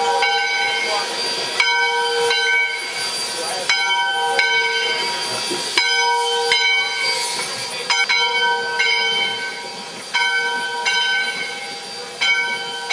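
Full-size steam locomotive's bell ringing over the hiss of escaping steam. The strikes come in pairs about every two seconds, each ringing out and fading, and grow fainter toward the end.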